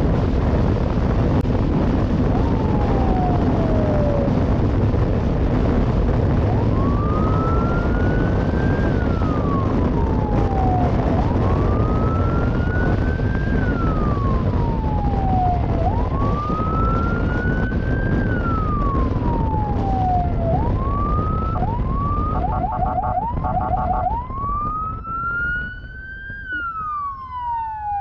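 Police siren on a moving escort motorcycle wailing, rising and falling about every four and a half seconds, with a few quicker sweeps and a short fast warble about two-thirds in. Heavy wind and road rumble runs under it and drops away near the end as the bike slows.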